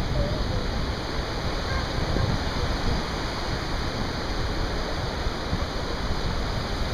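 Steady rush of surf breaking and washing up a sandy beach.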